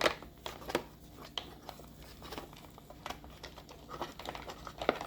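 Irregular light plastic clicks and taps from a Roomba brush roll being turned by hand and seated into its groove, with a slightly louder cluster of clicks near the end.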